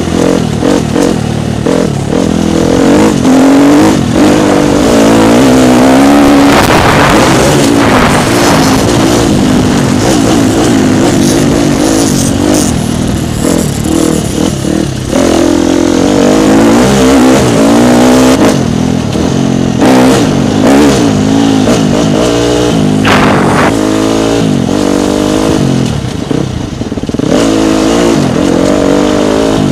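Dirt bike engine heard close from an on-board camera as the bike is ridden, its revs rising and falling over and over through the corners, with a few short rushes of noise along the way.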